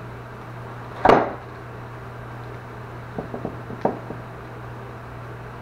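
Gear on a duty belt handled on a workbench: one sharp knock about a second in, then a few light clicks and a tap a little before four seconds, over a steady low hum.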